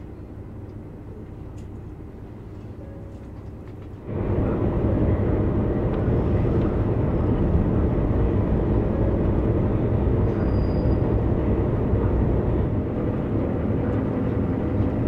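Cabin noise inside a Dosan Line diesel train: a quiet, steady low hum for about four seconds, then a sudden step up to a much louder, steady rumble of the train running.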